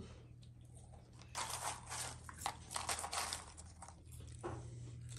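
Dry Cheez-It crackers crunching and rustling in bowls, in a quick run of crackly bursts starting about a second and a half in, with a few more near the end.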